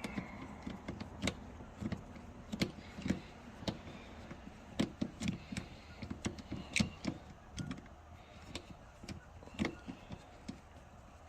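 Scattered light metallic clicks and knocks from a hand tool working loose the last of three 10 mm fasteners that hold a car's side mirror inside the door. They come irregularly, one or two a second.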